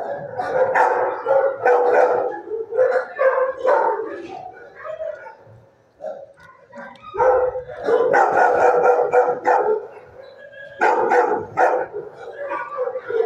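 Dogs barking in a shelter kennel, in bursts with two short lulls.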